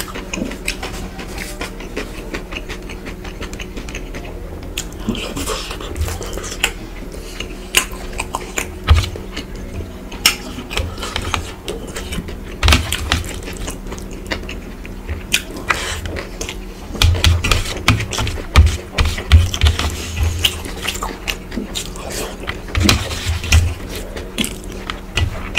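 Close-miked eating sounds of a man eating rice and curry with his fingers: wet chewing and lip smacks with many irregular clicks. There is a run of low thuds about two thirds of the way in, and a steady low hum underneath.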